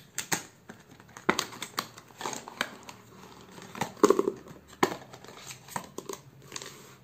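Clear plastic packet of a Camlin brush pen set crinkling and rustling as the pens are pulled out of it, with sharp plastic clicks as the pens knock together and are set down on paper; the loudest crinkle comes about four seconds in.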